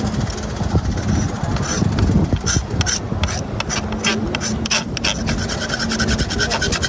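Knife blade scraping and rubbing over a plastic cutting board in many quick, uneven strokes, with a faint steady low hum underneath.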